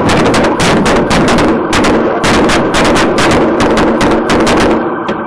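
Rapid, sustained gunfire: many loud shots in quick succession, several a second, picked up by a patrol car's dashcam; the shots thin out near the end.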